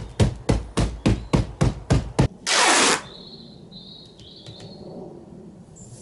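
Hammer blows on the edge of a large foam-filled cardboard box, about ten quick strikes at four to five a second. A loud hiss about half a second long follows, then only faint sounds.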